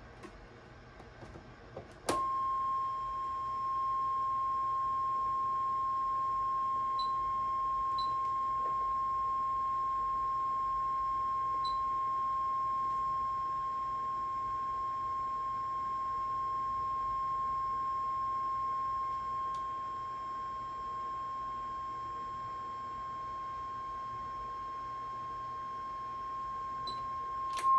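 Steady 1 kHz audio test tone that switches on with a click about two seconds in and then holds at one pitch. It is the tone fed into the radio's microphone input to modulate the CB transmitter for a modulation and peak-power check.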